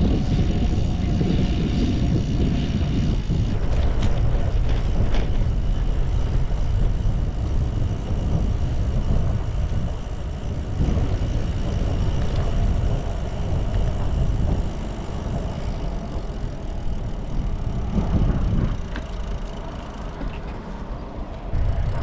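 Riding noise from a bicycle-mounted action camera: wind rushing over the microphone and tyres rolling over paving stones, a steady low rumble throughout.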